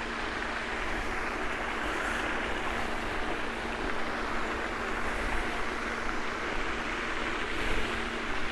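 Steady rushing noise of road traffic with a constant low hum underneath.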